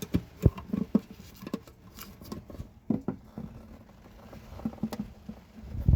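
Scattered light knocks, taps and scrapes as an opened bookshelf speaker cabinet and its wiring are handled, irregular and at no steady rhythm.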